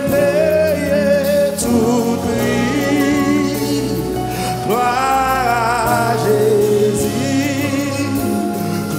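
Live gospel worship song in Haitian Creole: a man leads the singing with held, wavering notes, joined by backing singers over a band accompaniment, the melody climbing about five seconds in.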